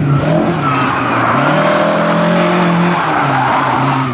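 Lada 2107 rally car's engine held at high revs while the car slides sideways through a corner, with the tyres skidding and squealing. The revs climb about a second in, hold, then drop near the end.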